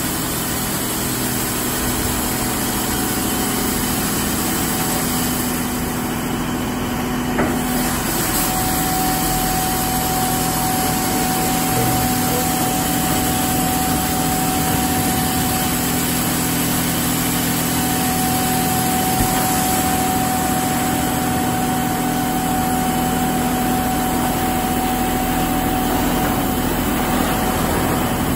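D&S Quicksilver automatic car wash gantry running a wash pass: a steady hum of motors and pumps over the hiss of spraying water, with a steady whine that sets in about eight seconds in and holds.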